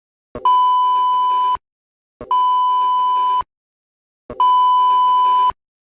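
Three identical long electronic beeps, each a steady high tone lasting about a second with a short click at its start, about two seconds apart: the opening alert tones of a mock Emergency Alert System broadcast.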